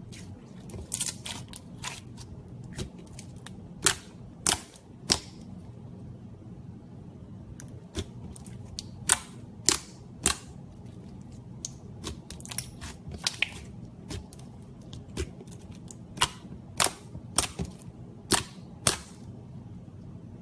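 Slime being squeezed and poked, giving irregular sharp pops and clicks as air pockets burst, sometimes singly and sometimes in quick clusters, over a low steady hum.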